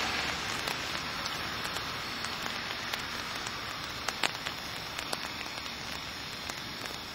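Steady rain falling on wet pavement: an even hiss with a few scattered sharp ticks of individual drops.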